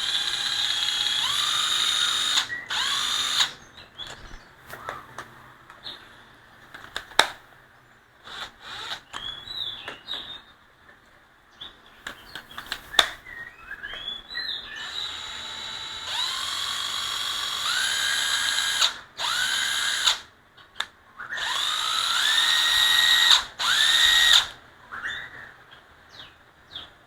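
Panasonic EZ7206 cordless drill/driver run with no load in several bursts, its motor whine climbing in steps as the variable-speed trigger is squeezed further, with short trigger blips and a couple of sharp clicks between runs. It is being test-run in reverse.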